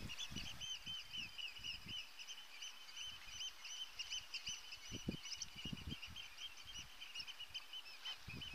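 A small songbird singing one long, unbroken run of rapid warbling, with a few faint low thumps underneath.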